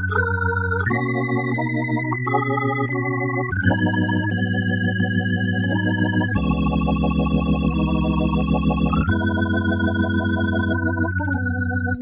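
Kurzweil K2700 keyboard workstation playing an organ sound: held chords over a deep bass, the chords changing every second or few, with a slight wavering vibrato.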